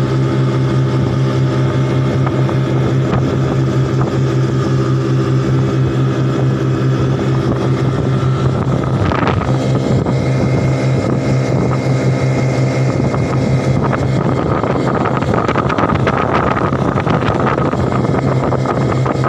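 Twin 15 hp outboard motors running steadily with the boat under way, a constant engine drone over the rush of water from the hull and wake. The water and wind hiss grows over the last few seconds.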